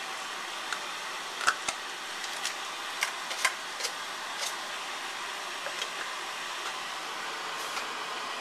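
A wooden spoon and utensils knock and clink against a stainless steel pot in a string of about a dozen short, sharp taps over the first six or seven seconds, the loudest about one and a half seconds in. Under them runs a steady, fan-like hiss.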